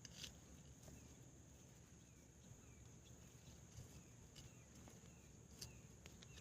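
Near silence outdoors: a steady high-pitched insect drone, with a few faint clicks and some faint short chirps.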